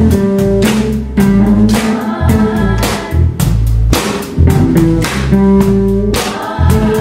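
Live rock band playing, with a drum kit keeping a steady beat, electric bass and guitar, and a group of voices singing together.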